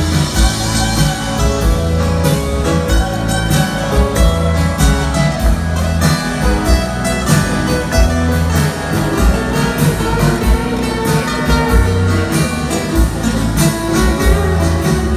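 Live band playing a slow ballad over a stadium PA, with strummed acoustic guitar and bass, recorded from far back in the stands.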